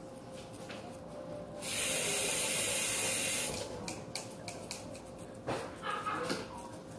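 A steady hiss lasting about two seconds, starting a second and a half in, with a few light clicks later on.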